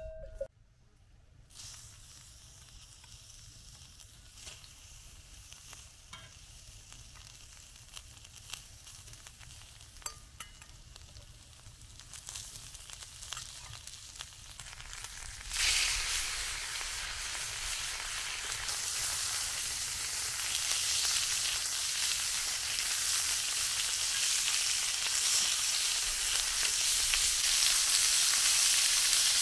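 Food frying in a cast-iron grill pan on a wood-burning stove. At first there is only a faint crackle from onions and garlic. About halfway through, a loud, steady sizzle starts suddenly as the steaks go into the hot pan.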